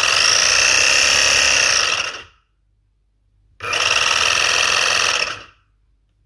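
A 3D-printed centrifuge's brushless motor and worm drive running with a steady high whine, in two runs of about two seconds each. Each run starts abruptly and dies away quickly.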